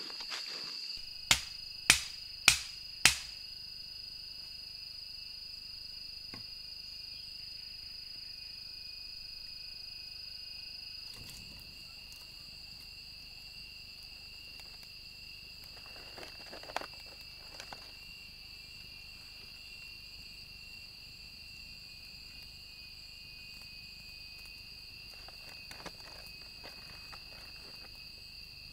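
A steady, high-pitched chorus of jungle insects, with four sharp knocks in quick succession a second or two in, and a few faint clicks of handling later.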